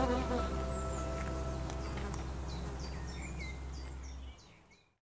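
Insect buzzing and a soft music chord fade out over a steady low hum, and a small bird chirps a quick run of short notes near the end before all fades to silence.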